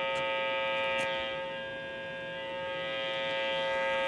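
Weather radio glitching: instead of the broadcast it gives out a steady, harsh tone of several pitches at once. The tone dips a little in level about two seconds in, then comes back.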